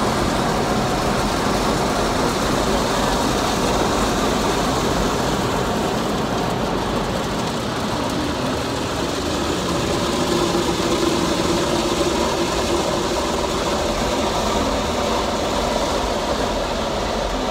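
Automatic car wash machine working over the car, heard from inside the cabin: rotating brushes and water spray make a steady rushing noise on the roof and windows.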